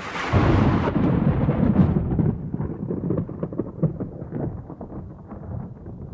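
Thunder sound effect: a loud deep crash just after the start, then a crackling rumble that fades over the next few seconds.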